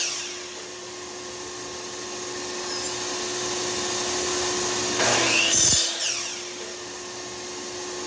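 Shop vacuum running with a steady whine on a miter saw's dust port, and a compound miter saw cutting through a cedar board in one short, loud burst about five seconds in.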